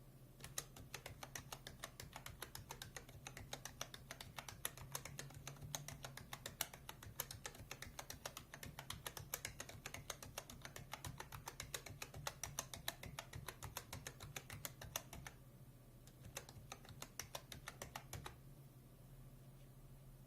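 Fast typing on a mechanical keyboard, a dense run of key clacks lasting about fifteen seconds. A short pause follows, then another brief burst of typing.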